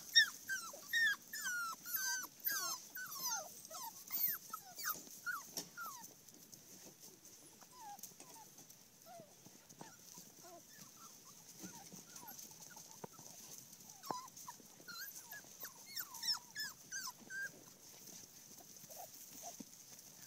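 Six-week-old puppies whining and yipping in short, high cries that bend up and down, coming quickly over the first several seconds, then scattered, with another run about two-thirds of the way through.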